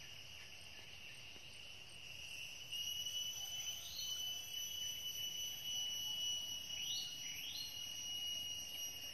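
Insects trilling steadily in a high, continuous chorus that grows louder about three seconds in. Three short rising calls cut through it in the second half.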